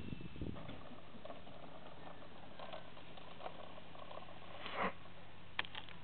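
Electric RC aerobatic plane rolling out on grass after landing: faint rustling and scuffing of its wheels through the grass, a louder rustle about five seconds in, and a few sharp clicks near the end.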